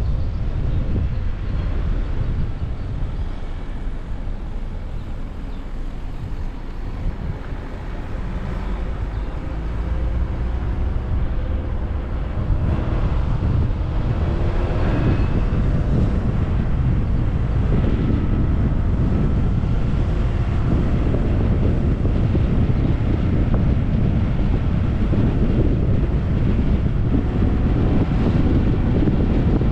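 Driving noise from a 2021 Jeep Compass under way: a steady low rumble of road, tyres and engine, with wind buffeting the microphone. It grows louder about halfway through.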